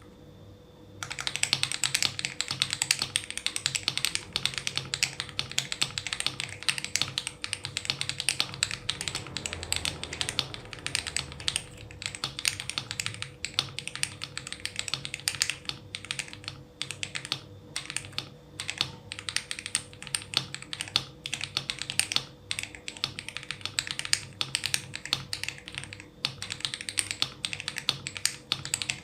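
Fast typing on a mechanical keyboard fitted with lubed Akko CS Rose Red linear switches on the letter keys, a quick stream of clacks starting about a second in with short pauses. Almost no spring ping is heard from the freshly lubed switches.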